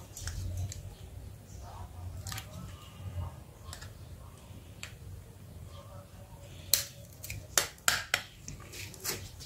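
Small plastic parts of an Asus Z008D phone clicking and snapping as they are pried apart and handled with a metal pry tool. Faint scattered clicks at first, then a quick run of about six sharp clicks in the second half.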